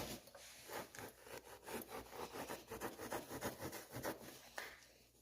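Serrated bread knife sawing through foam-rubber seat padding in quick back-and-forth strokes, which stop just before the end.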